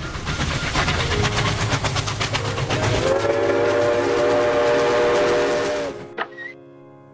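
Train sound effect: a rapid, even clatter of wheels, then a steady horn sounding for about three seconds before it all cuts off suddenly, leaving a faint lingering tone.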